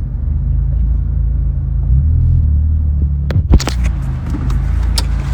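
A car driving, heard as a loud, steady deep rumble. From about three seconds in, several sharp knocks or cracks cut through it.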